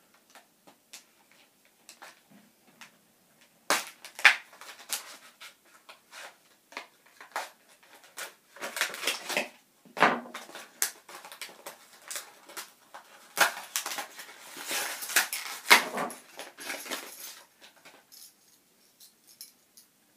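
A plastic blister pack with a cardboard backing being cut open with a pocketknife and torn apart: irregular crinkling, crackling and sharp clicks of stiff plastic, in bursts that are loudest about four seconds in and again for several seconds in the middle and towards the end.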